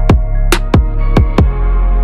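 Electronic background music with a steady beat: deep kick drums that drop in pitch and sharp snare hits over sustained bass notes.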